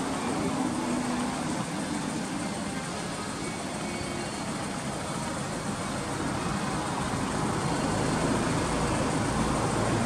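Honda S2000 AP1's 2.0-litre F20C four-cylinder idling steadily, heard at the tailpipe, growing a little louder in the last few seconds.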